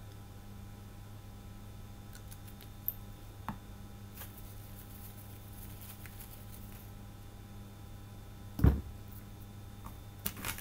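Quiet room tone with a steady low hum, a paper towel rustling faintly in the hands, and a few small clicks of hand work on the fly; one low thump about three-quarters of the way in is the loudest sound.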